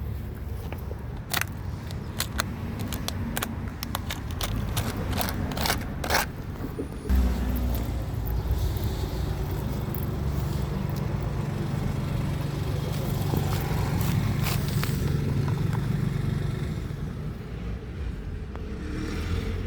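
A run of sharp clicks and knocks over the first six seconds or so. Then, from about seven seconds in, a motor vehicle's engine runs with a steady low hum that swells and fades away over the next ten seconds or so.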